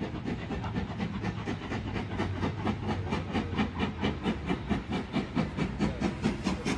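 Rail sounds at a level crossing with the barriers down and a train approaching: a rapid, even pulsing about five times a second, getting louder toward the end.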